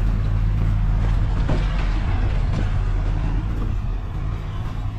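Vehicle engine running with a steady low drone while driving, with tyre and road noise and a few sharp knocks from bumps about a second and a half in and again near the middle.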